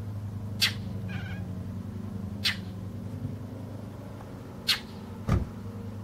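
A cat mewing at a bird through a window screen. The bird gives short, sharp chirps about every two seconds, over a steady low hum.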